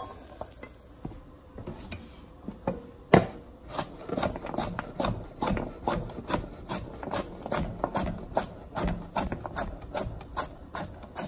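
Chef's knife chopping carrots into rounds on a cutting board. A few scattered knocks, then one loud knock about three seconds in, after which the knife strikes the board in a steady run of about three or four chops a second.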